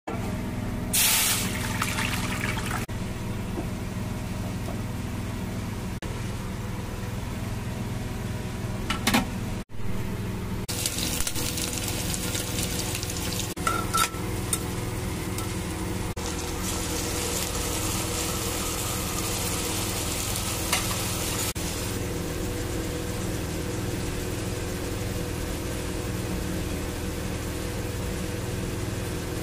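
Onions frying in hot oil in a pot, sizzling steadily, with a few clicks from stirring against the pot. A steady low hum runs underneath.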